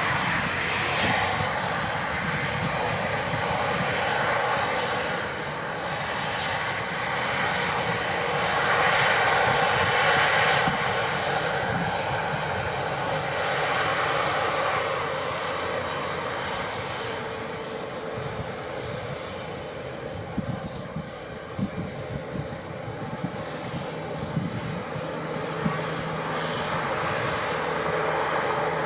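Airbus A350-900's Rolls-Royce Trent XWB turbofan engines running: a continuous jet rush with steady whining tones, swelling and easing over several seconds.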